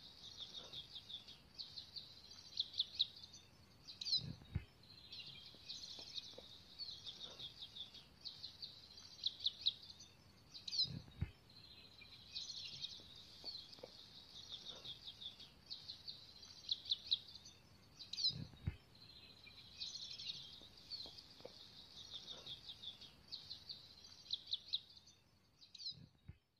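Small birds chirping and trilling rapidly and without pause in a high register, in a pattern that repeats about every seven seconds. A soft low thump comes with each repeat.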